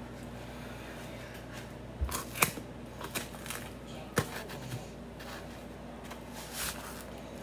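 Kitchen handling noises: a few scattered clicks and knocks, with a dull thump about two seconds in and the sharpest clicks shortly after it and about four seconds in.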